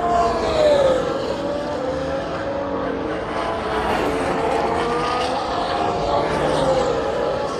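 A 2018 Formula 1 car's turbocharged 1.6-litre V6 engine at high revs on track. Its pitch drops about a second in, then holds a sustained note that rises and dips slightly later on.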